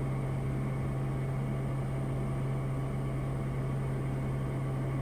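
Steady cabin drone of a Piper Meridian's PT6A turboprop and propeller during the climb: an even low hum that does not change.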